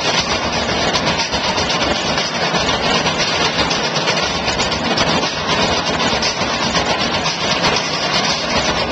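Percussion troupe drumming on painted barrel drums, a dense, steady pounding with no breaks.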